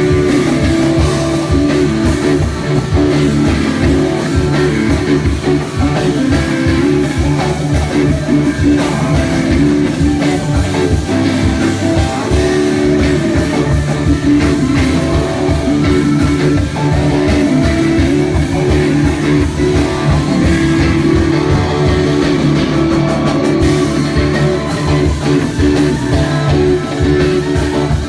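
Live rock band playing an instrumental passage: electric guitars over bass and percussion, loud and steady throughout.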